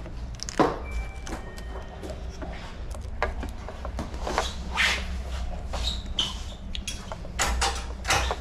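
Hands working on a mountain bike's cabling and remote-lockout parts: an irregular run of clicks, taps and rustles over a steady low hum.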